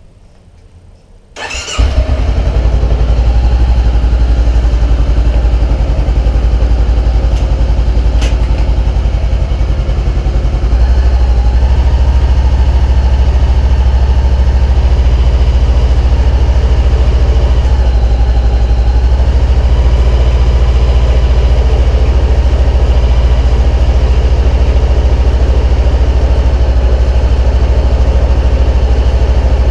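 Honda CB500F's parallel-twin engine started with a brief crank, then idling loudly and steadily; it gets louder about eleven seconds in.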